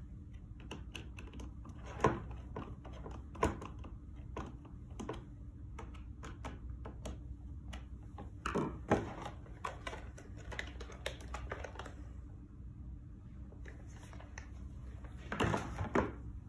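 Phillips screwdriver tightening self-tapping screws into a plastic fibre-optic closure, with handling of the plastic tray and case: a run of small clicks and taps and a few louder knocks.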